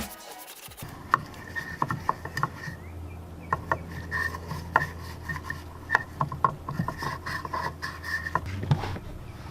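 Rubbing and scrubbing on plastic car door trim, with irregular sharp clicks and short squeaks, over a low steady hum that stops near the end.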